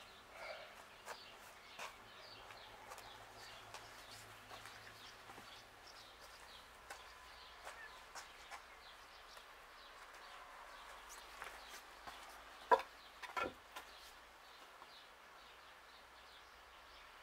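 Faint farmyard ambience: chickens clucking and small birds chirping on and off, with two louder, sharper sounds about three quarters of the way through.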